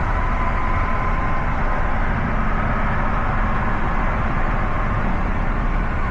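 Steady rumble of a moving vehicle: even engine and road noise, strongest in the low end, with a faint steady whine.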